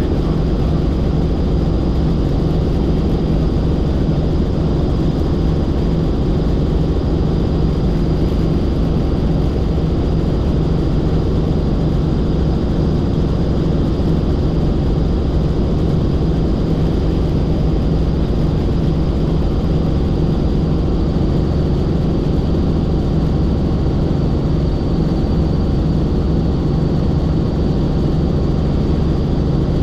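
Helicopter in steady flight: constant engine and rotor noise with a steady high whine over a low hum.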